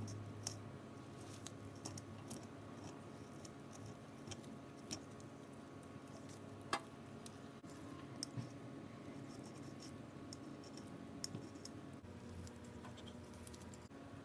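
Small knife cutting tiny pieces of food on a miniature cutting board: faint scraping and scattered light taps, with one sharper click about halfway through.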